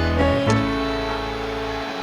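Background instrumental music: sustained held notes over a bass line, with a new chord about half a second in.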